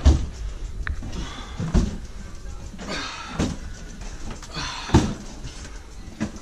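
Loaded two-wheel hand truck being hauled up carpeted stairs one step at a time: four heavy thumps about a second and a half apart as the wheels drop onto each tread, with scraping and rustling in between.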